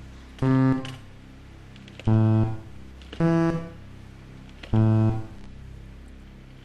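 Game-show button tones: four separate synthesized notes, each about half a second long and each at a different pitch, sounded one at a time with gaps of one to one and a half seconds. A low steady hum runs underneath. The tones are a memorised note sequence being repeated by pressing the buttons.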